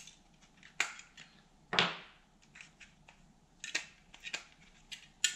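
Batteries being pulled out of a plastic electric flyswatter's battery compartment and set down on a workbench: about five small clicks and knocks, the loudest about two seconds in.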